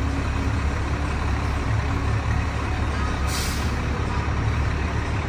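A large road vehicle's engine running with a low, steady drone, with a short hiss of air a little over three seconds in, like an air-brake release.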